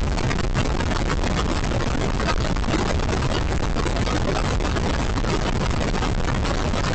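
Steady rush of wind and engine and tyre noise from a motorcycle cruising at about 100 km/h on a highway, with the wind buffeting the microphone.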